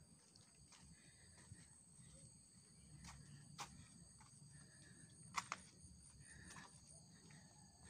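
Faint forest insects, a steady high-pitched chorus of several held tones. Soft footsteps and small clicks on the dirt trail come through every second or so, with two sharper ones a little past halfway.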